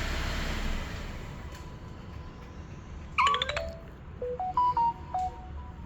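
Engine noise dies away in the first second after a remote shut-off. About three seconds in, a short electronic jingle plays: a quick falling sweep, then a string of short beeping notes at changing pitches, like a notification chime.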